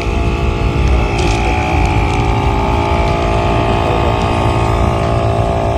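Portable tyre-inflator air compressor running steadily, pumping up a badly under-inflated car tyre (around 10 psi), its motor giving a steady hum with several tones over a low rumble.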